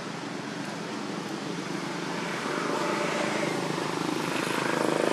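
Steady engine noise in the background, growing louder over the second half.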